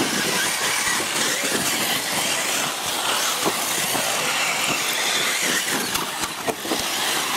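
Radio-controlled model cars racing around the track: a steady motor noise with a few sharp clicks.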